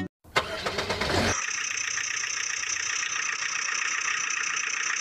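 An engine starting: about a second of rapid ticking, then it settles into a steady, even running hum from about a second and a half in.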